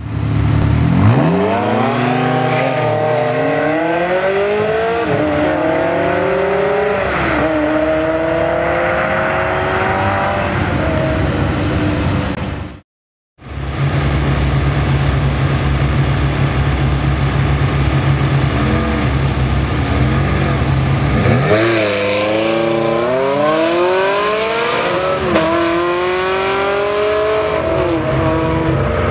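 Ferrari 360 V8 engines accelerating hard, the pitch climbing and falling back at each upshift. After a brief silent cut about halfway, a steady low idle runs for several seconds before another hard pull-away, rising again through the gears.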